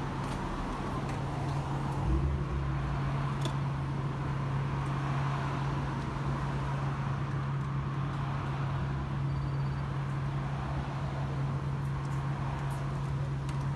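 Steady low mechanical hum over a faint wash of background noise, with a few faint ticks.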